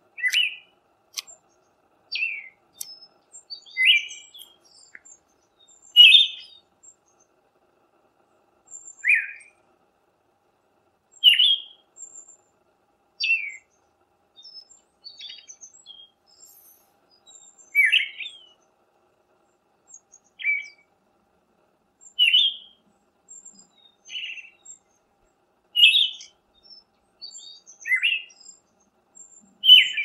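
Male Siberian thrush singing: short, separate phrases, each a brief slurred or downward-sliding note, repeated about every two seconds, with faint thin high notes in between.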